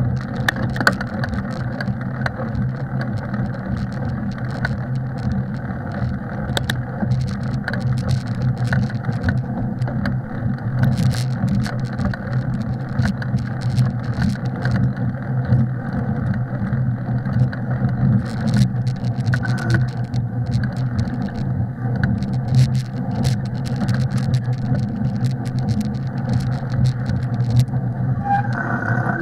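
Steady ride noise from a mountain bike rolling along a snowy trail, a low rumble of tyres and wind with frequent small clicks and rattles from the bike.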